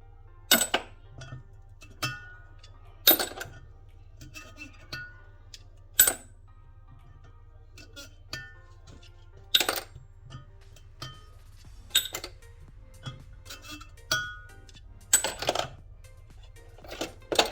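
Sharp metallic clinks and taps from steel valve-train parts being removed from an aluminium LS cylinder head and set down, with about six louder clinks a few seconds apart that ring briefly, among smaller ticks.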